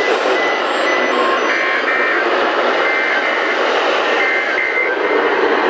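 Steady hiss of radio static from a weather radio receiver on a weak signal, with short faint broken tones coming through the noise in the middle.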